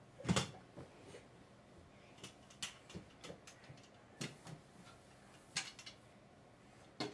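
A lamp being dusted and handled: a few scattered light knocks and clicks, the loudest just after the start.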